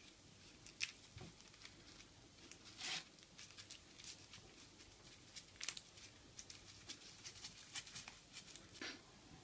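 Faint rustling and scattered small crackles as gloved hands roll a dry nori sheet with rice and filling into a sushi roll.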